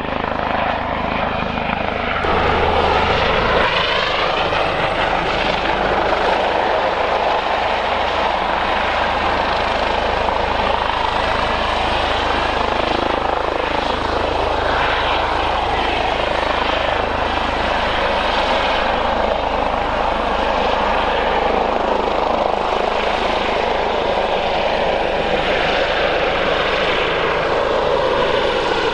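Airbus H145 police helicopter's twin-turbine engines and rotors running loud and steady while it hovers and manoeuvres with a firefighting bucket slung beneath. The rotor sound sweeps slowly up and down in pitch.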